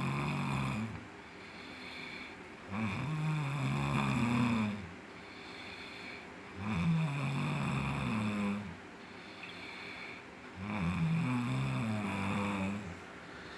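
A man snoring in his sleep: a long, low snore about every four seconds, four in all (the first already under way), with quieter breathing between.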